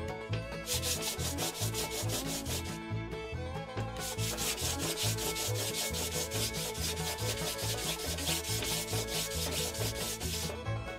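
Sandpaper rubbed rapidly back and forth along a glued rod blank, sanding away excess glue in quick, even strokes. The strokes pause for about a second around three seconds in and stop briefly near the end.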